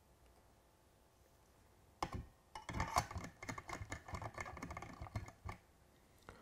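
A quick run of small, sharp clicks and rattles from hands working a soldering iron and a thin wire against model railway track on a baseboard, starting about two seconds in and stopping after about three and a half seconds.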